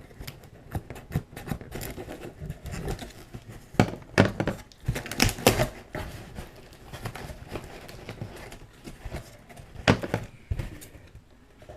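Packing tape being peeled off a cardboard box and the box handled and opened: irregular crackling, rustling and small scrapes, with a few louder knocks about four to five and a half seconds in and again near ten seconds.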